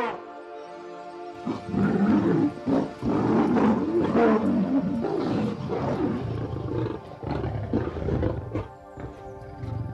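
A large animal's loud, rough calls in a run of bursts, starting about a second and a half in and easing off near the end, over background music with held tones.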